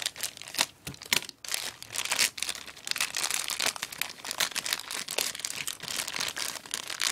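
Plastic packaging crinkling and rustling as it is handled, in a dense run of irregular crackles.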